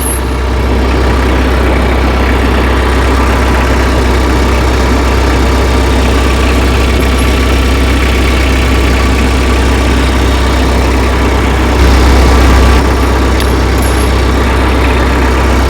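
Tractor engine idling steadily, with a brief louder moment about three-quarters of the way through.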